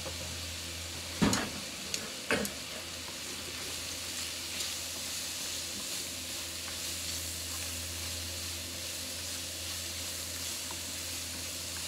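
Pork and shredded cabbage sizzling in a non-stick frying pan as they are stirred with a wooden spatula and chopsticks: a steady frying hiss. Two sharp knocks about a second apart, a little over a second in.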